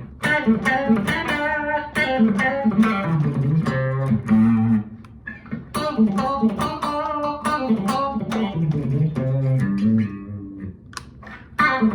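A PRS SE NF-3 electric guitar with Narrowfield pickups, played through an amplifier: picked notes and chords in phrases, with short pauses about five seconds in and near the end.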